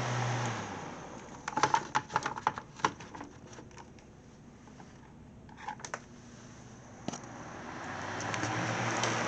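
Sunbeam Blizzard oscillating desk fan switched off, its motor hum and air noise dying away as the blades spin down. A run of sharp clicks comes about a second and a half in, and a few more follow later. Near the end the fan starts again, its hum and rush of air building back up.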